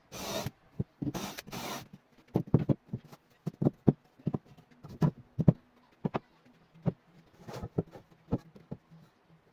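Wood being worked by hand: two rasping, rubbing strokes, then a string of irregular light knocks and taps of wooden pieces.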